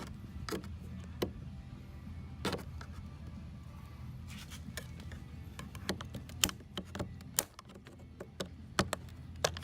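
Plastic trim tools prying at the plastic interior trim of a 2012 Toyota 4Runner's front passenger door, making irregular sharp clicks and snaps as the clips are worked loose, over a low steady hum.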